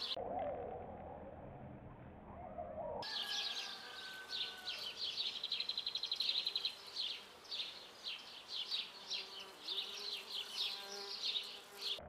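Honeybees buzzing, with birds chirping in quick high bursts and a short trill. A dove is cooing for the first few seconds, then the sound changes abruptly to the buzzing and chirping.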